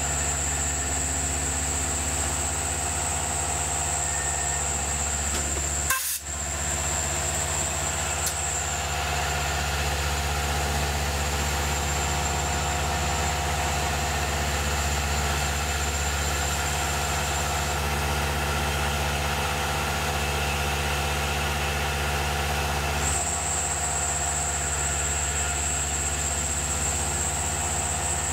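Tormach PCNC 1100 CNC mill running, its spindle turning a small cutter that mills the bore of a 4140 steel part, with a steady low hum and a high whine. The whine fades about a third of the way in and comes back near the end, and there is a brief dropout about six seconds in.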